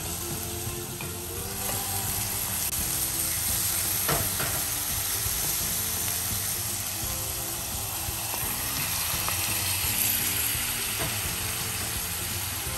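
Chicken liver and heart frying in a pan of sautéed shallots and tomato in coconut oil, sizzling steadily while being stirred with a spoon, with a few light scrapes. The sizzle grows louder about two seconds in.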